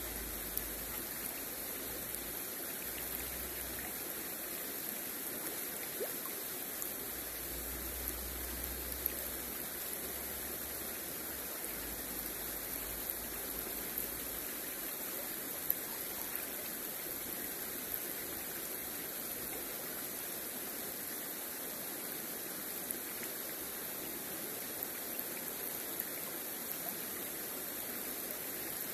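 Shallow river water flowing and rippling over stones right by the microphone, a steady rush of water.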